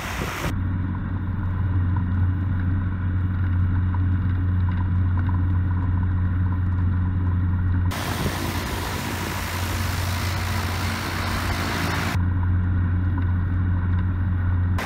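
Propeller-driven light sport aircraft, a Czech SportCruiser with its Rotax 912 four-cylinder engine, running at low taxi power with a steady low drone. About eight seconds in the sound switches abruptly to a rougher, rushing propeller-and-engine noise, then back to the steady drone about four seconds later.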